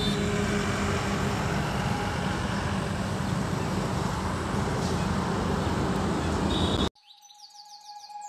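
Steady road and engine noise of a moving vehicle, a low even rumble with a steady hum. It cuts off abruptly about seven seconds in, and a music jingle with a rising sweep starts faintly just after.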